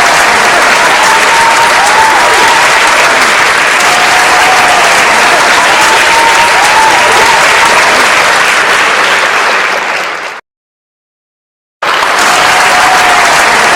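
Large crowd applauding and cheering, with calls that rise and fall in pitch over dense clapping. It fades out about ten seconds in, and after a second and a half of silence starts again abruptly.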